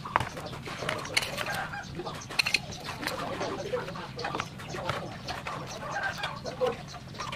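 Knife cutting and scoring watermelon rind on a plastic tray, making repeated short, sharp clicks and taps. Animal calls sound in the background throughout.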